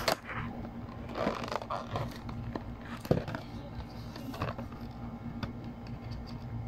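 Hands handling and opening a small cardboard charger box: rustling and scraping of the cardboard, with a sharp click or tap just as it starts and another about three seconds in.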